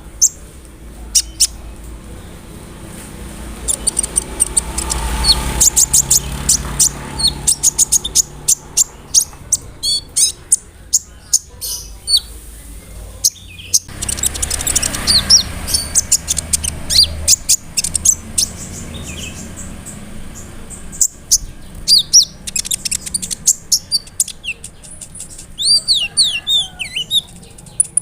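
Kolibri ninja sunbird singing: fast runs of high, sharp chirps and trills, with short whistled slurs near the end.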